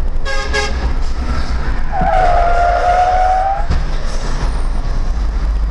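Dashcam audio of a road crash: steady low road and wind rumble, with a sustained high tyre squeal from about two seconds in, lasting under two seconds, and a knock at its start and another as it ends, as the box truck ahead skids and crashes.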